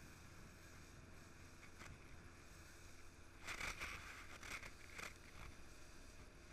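Faint water sounds around a small boat: a steady low rumble, with a few short splashes against the hull about halfway through.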